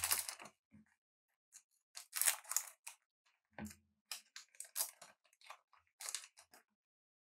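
Trading cards being handled: a run of short, crisp rustling and sliding scrapes of card against card, with two soft knocks.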